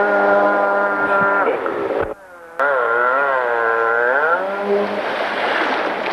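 Two-stroke engine of a stand-up jet ski running at high revs, holding a steady whine, cutting out for a moment about two seconds in, then rising and falling with the throttle. After about four seconds the engine note drops away and a rushing, splashing water noise takes over as the ski goes down in the spray.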